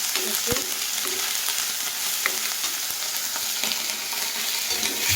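Ground ginger and raw turmeric paste sizzling in hot mustard oil in a kadhai as it is stirred and roasted, a steady frying hiss with a few light clicks.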